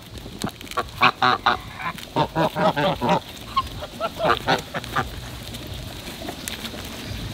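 A flock of domestic geese calling in short, repeated honks, many overlapping in the first few seconds and thinning out near the end.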